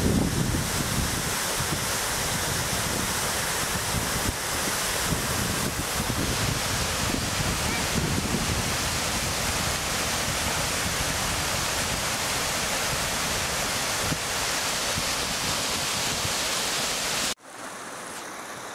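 Water pouring over a stone weir, a steady loud rushing. About seventeen seconds in it cuts off suddenly to the quieter babble of a small rocky stream.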